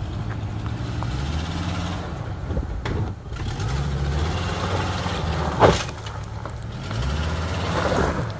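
Hummer H3 engine revving up and easing off in several swells as the truck crawls over rocks, with a brief sharp noise a little past halfway through.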